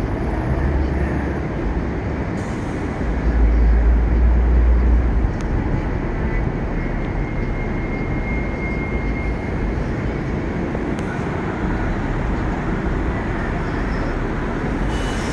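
Steady downtown street-traffic noise. A low rumble swells for about two seconds, about three seconds in, and a faint thin whine comes in around the middle.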